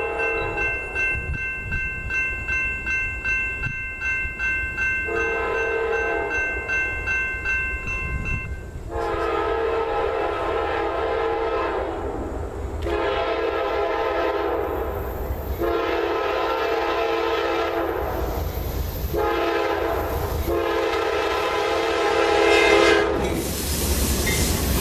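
Freight locomotive air horn sounding a series of long blasts with one short one, the grade-crossing warning, growing louder as the train nears. A crossing bell rings steadily at the start. Near the end the diesel locomotives arrive close by with a loud rumble of engines and wheels.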